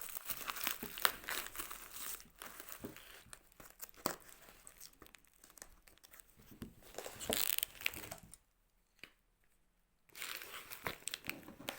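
Plastic packaging crinkling and tearing as a parcel is unwrapped by hand, in irregular rustles and crackles. The sound drops out briefly about eight seconds in, then starts again.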